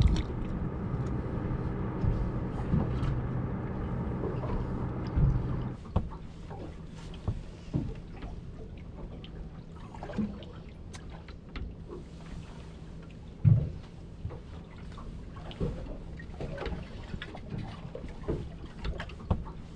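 A boat's engine running steadily for about the first six seconds. Then muffled underwater sound from a camera on the fishing line: water noise with scattered knocks and clicks over a faint low hum.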